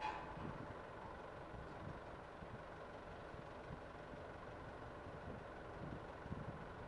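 Heavy diesel construction machinery running steadily at a trench dig: a faint, even, low engine noise with no distinct events.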